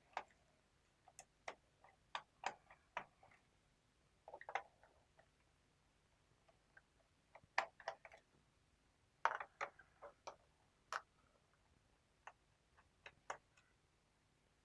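Scattered small clicks and taps of a screwdriver working out the screws of a laptop's plastic bottom cover, coming irregularly, a few at a time, with short quiet gaps between.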